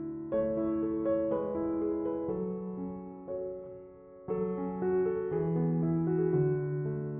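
Background music: a slow, gentle piano or electric-piano piece, chords struck every second or so and left to ring.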